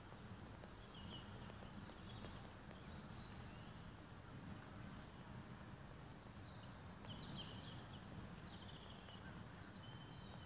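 Faint outdoor ambience: small birds giving short chirps now and then, with a cluster of chirps about seven seconds in, over a steady low rumble.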